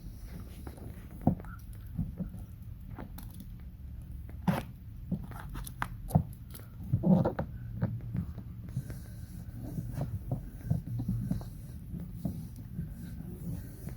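Hand-handling noises of vinyl graphic film being pressed and folded around the edge of a Tolex-covered case: irregular taps, clicks and short rustles, a sharper one about a second in and a cluster about halfway, over a low steady hum.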